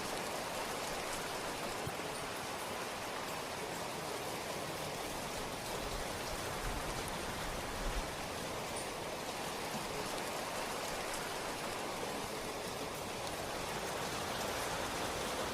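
Steady rain falling, an even hiss of drops with a few individual drips ticking through it.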